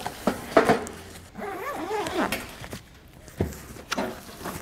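A padded fabric carry bag rustling and knocking as a two-burner camp stove is slid into it and the bag is handled, with sharp knocks about half a second in and again near the end. A short wavering, whine-like pitched sound comes about two seconds in.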